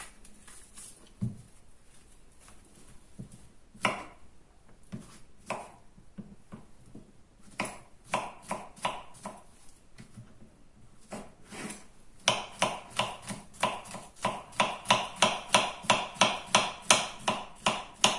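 Kitchen knife chopping banana slices on a wooden cutting board: a few scattered knocks at first, then from about two-thirds of the way in a quick, even run of chops, about three or four a second.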